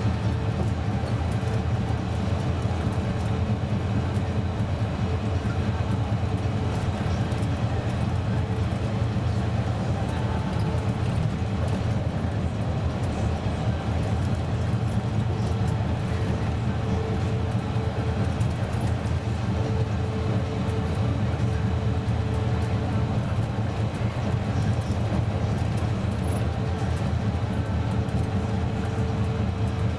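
Karosa C954E intercity bus cruising at a steady speed, heard from inside the cabin: its diesel engine runs evenly and the tyres hum on the road, with no gear changes.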